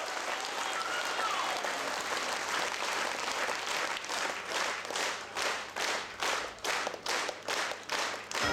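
A theatre audience applauding, then falling into rhythmic clapping in unison about four seconds in, at about two to three claps a second.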